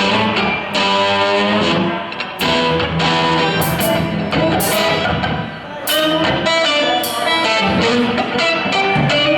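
Live blues-rock band playing an instrumental passage: electric guitar runs quick single-note lines over a band, with sharp cymbal-like hits every second or so.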